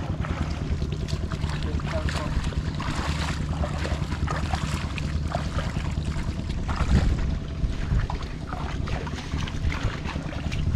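Wind buffeting the microphone over a steady low rumble, with footsteps squelching and splashing through wet rice-paddy mud; one louder splat about seven seconds in.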